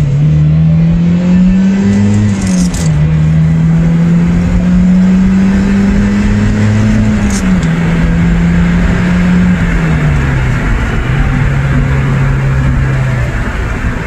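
Turbocharged 1.8-litre four-cylinder of a Mazdaspeed MX-5 Miata under full throttle, revving up through the gears. The pitch climbs and drops back at upshifts about three times in the first eight seconds, then holds steady and eases off near the end. The engine is running with its throttle position sensor unplugged and is short on turbo boost, later traced to an exhaust manifold leak at a loose stud.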